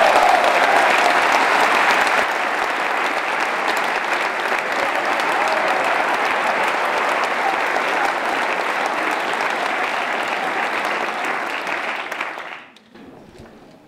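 Audience applauding steadily, dying away about a second before the end.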